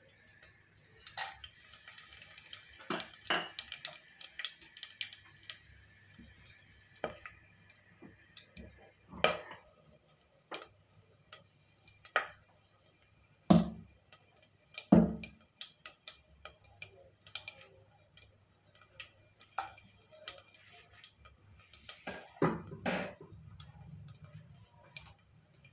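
Whole spices dropped into hot fat in an aluminium pressure cooker, making scattered sharp clicks and pops with a faint sizzle over the first several seconds, and a couple of louder knocks against the pot about halfway through.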